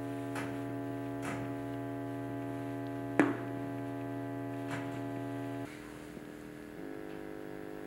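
Ambient drone music: a held chord of steady tones that shifts to a new chord about five and a half seconds in and again near seven seconds. Scattered faint clicks run over it, with one sharp, loud crack a little past three seconds.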